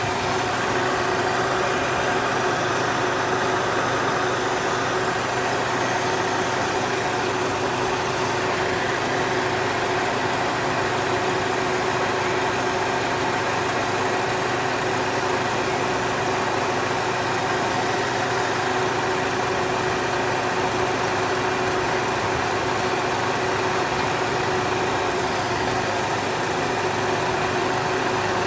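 Chevrolet Aveo's E-TEC II 16-valve four-cylinder engine idling steadily with the air conditioning on, holding its idle instead of stalling.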